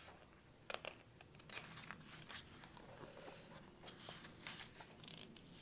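Pages of a hardcover book being turned by hand: faint paper rustling with a few soft clicks.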